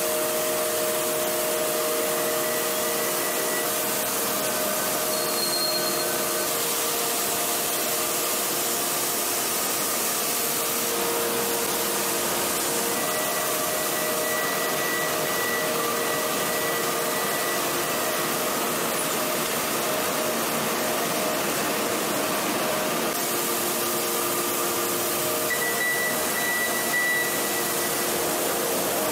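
Heavy forging machinery running steadily: a dense rushing noise with several faint whining tones that come and go, and no hammer blows.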